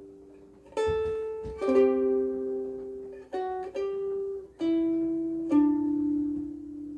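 Blue Wing soprano ukulele strung with Aquila B-black strings, played slowly: about six chords struck one after another, each left to ring out with long sustain, the last fading near the end.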